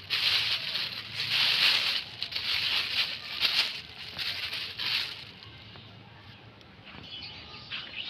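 Thin clear plastic bag rustling and crinkling in a hand as litter is stuffed into it, in a series of bursts that die down about five seconds in.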